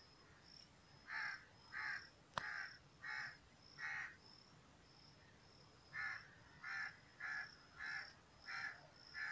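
A crow cawing loudly again and again, calling at a person it has spotted: about five caws in a quick run, a short pause, then six more.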